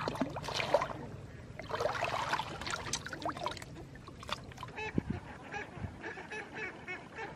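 Water splashing and sloshing in bursts as a plastic-bottle fish trap is pulled up out of a shallow pond. From about halfway through, a bird calls over and over in short calls, several a second.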